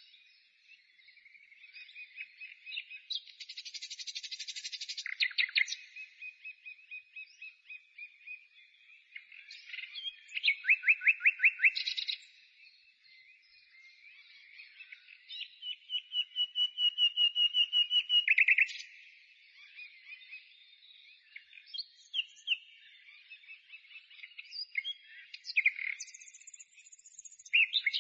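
A songbird singing a long, varied song of fast trills and rapid runs of repeated high notes, in phrases with short pauses between them.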